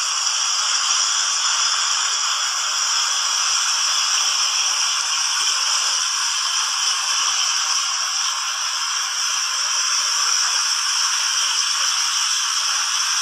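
Water fountain's jets spraying and splashing down, a steady hiss with no low rumble.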